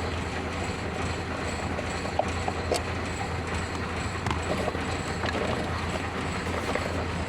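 Steady mechanical running noise with a constant low hum, and a few light clicks at scattered moments.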